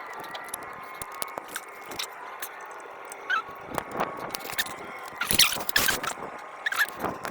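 Scattered clicks and knocks of tools and metal parts being handled during reassembly work on a truck engine, with a louder rattling scrape about five seconds in. A few short chirps sound over it.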